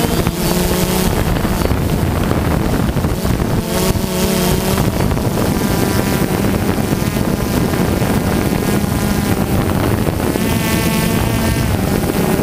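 DJI Phantom quadcopter's electric motors and propellers whining, the pitch of the whine shifting up and down as the motors change speed, with heavy wind buffeting on the onboard GoPro's microphone.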